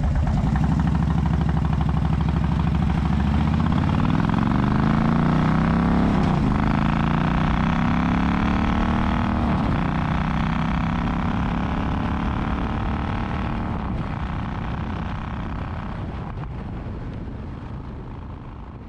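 Motorcycle engine accelerating through the gears: its pitch climbs steadily, drops at an upshift about six seconds in and again about nine and a half seconds in, then holds and fades out near the end.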